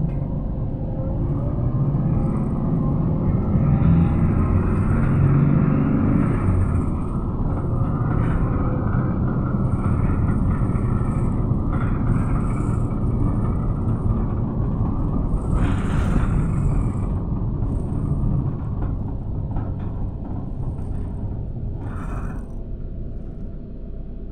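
Steady engine and road rumble heard from inside a moving bus, easing off toward the end, with a short hiss about sixteen seconds in.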